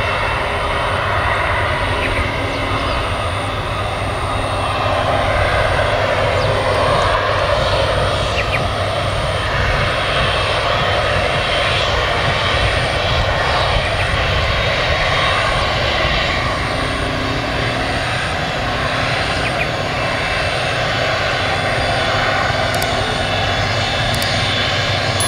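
Airliner engines running, a loud, steady rumble and rush that swells slightly about a quarter of the way in.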